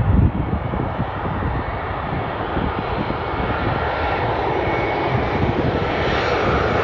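Twin-engine jet airliner, a British Airways Airbus A320, on final approach to land. Its engine noise grows steadily louder as it comes closer, and a faint whine joins it about halfway through. Low gusty rumbling, like wind on the microphone, is heard at the very start.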